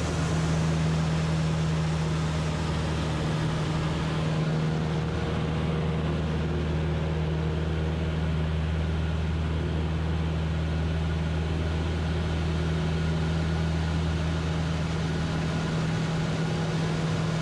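Van's RV-8's piston engine and propeller droning steadily, heard in the cockpit, with a low steady hum under a layer of air hiss. The hiss eases off a few seconds in while the engine note stays even.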